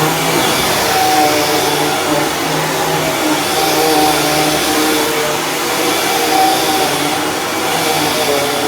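Dirt Devil Ultra Vision Turbo upright vacuum cleaner running steadily on carpet, its motor hum shifting slightly in pitch as it is worked.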